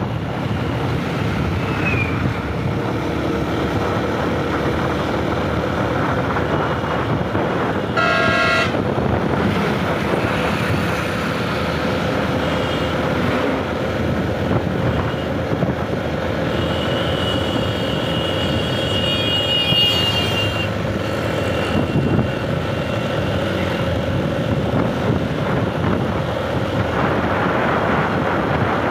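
Steady wind rush on the microphone and engine and road noise from a vehicle riding along a road. A vehicle horn honks once, briefly, about eight seconds in.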